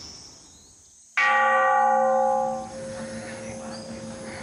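A hanging Buddhist temple bell struck once with a hand-held stick striker about a second in, ringing with several steady tones. The upper tones die away after about a second and a half while a low hum lingers.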